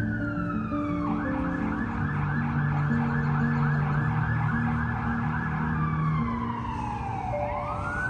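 Emergency vehicle siren on a city street: a slow rising and falling wail that switches about a second in to a rapid yelp of roughly five warbles a second, then goes back to the slow wail near the end.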